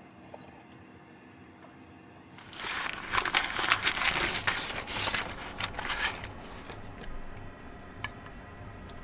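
Crinkling and rustling starts about two and a half seconds in and lasts roughly three and a half seconds. A single sharp click follows near the end.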